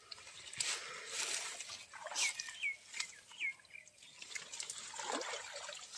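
Hands rummaging through water hyacinth and shallow muddy water: irregular rustling of leaves and small splashes and sloshes. About two seconds in, a few short high chirps sound over it.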